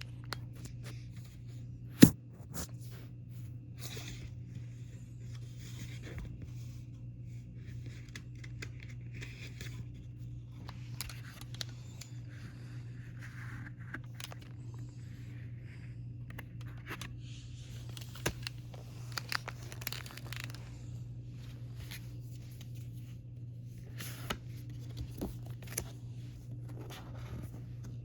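A K-pop album and its packaging being handled: tearing and rustling of packaging, scraping, and scattered clicks and taps. The loudest is a single sharp tap about two seconds in. A steady low hum runs underneath.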